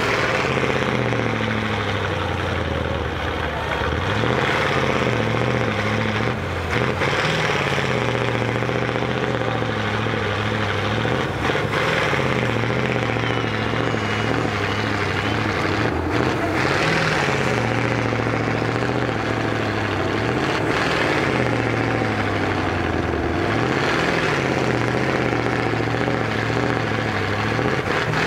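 Off-road trial truck's engine running hard under load, its revs falling and rising again every few seconds as the truck works on a steep slope.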